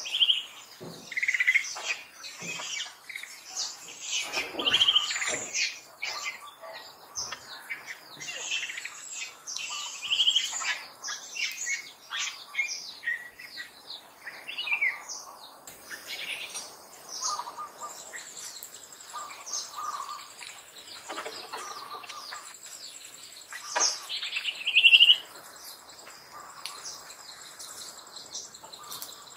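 Short, high-pitched animal chirps and squeaks repeated every few seconds, the loudest one a little before the end.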